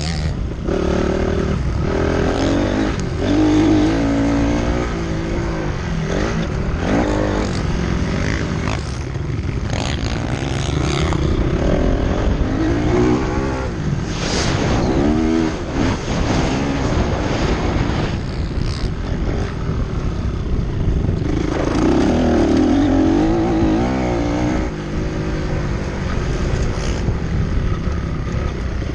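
Motocross motorcycle engine revving up and down again and again as the throttle is opened and closed, over a steady low rumble.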